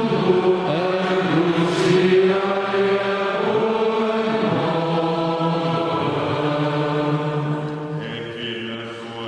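Male voice chanting a liturgical text, holding long notes on a few steady pitches and moving slowly between them. It grows softer near the end.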